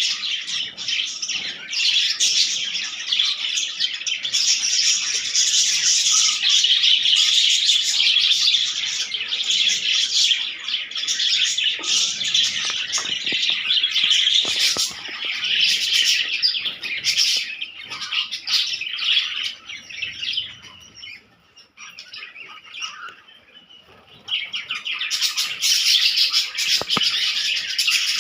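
A flock of budgerigars chattering and chirping continuously in a dense, overlapping mass, dying down briefly about three quarters of the way through before starting up loudly again.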